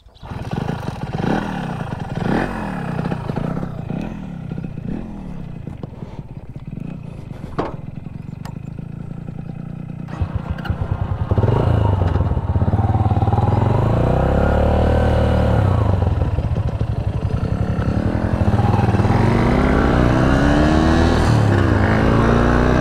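The two-stroke single-cylinder engine of a 1988 Kawasaki GTO 125 revs hard as it pulls away, its pitch climbing and dropping through the gears about five times, then fading. About eleven seconds in, a second, closer motorcycle engine comes in much louder, accelerating, with the two-stroke's rising revs heard ahead of it near the end.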